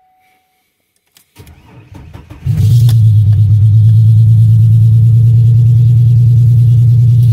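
A 2002 Oldsmobile Bravada's 4.2-litre Vortec straight-six being cold-started. The starter cranks for about a second, the engine catches about two and a half seconds in, and it then runs on at a steady idle.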